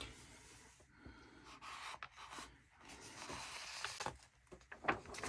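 Pages of a paper instruction booklet rustling and rubbing faintly as they are turned and smoothed flat by hand, with a few light ticks near the end.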